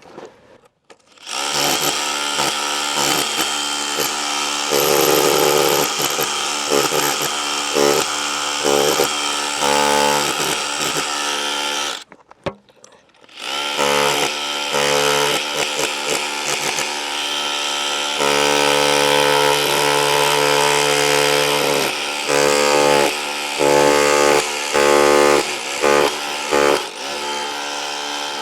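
Dewalt DCH263R2 cordless rotary hammer running in chisel (hammer-only) mode, chipping into a wall in two long runs with a brief stop about twelve seconds in. In the second run its steady hammering sound swells and eases again and again.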